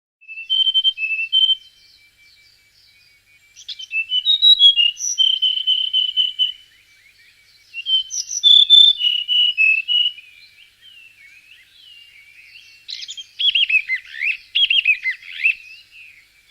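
A bird singing: phrases of high, clear repeated chirping notes and trills, in bursts about a second in, from about four to seven seconds, and from about eight to ten seconds, then a fast, jumbled warble from about thirteen seconds on.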